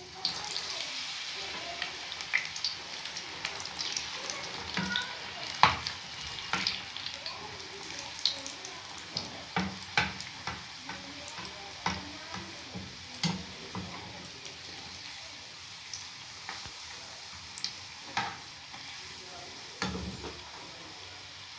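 Rolls shallow-frying in hot oil in a metal frying pan: steady sizzling that picks up as a second roll is lowered in at the start, with scattered clinks and scrapes of a metal slotted spatula turning them against the pan.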